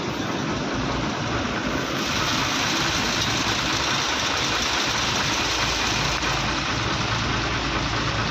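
A motor vehicle's engine running steadily, with a dense hiss that grows louder about two seconds in.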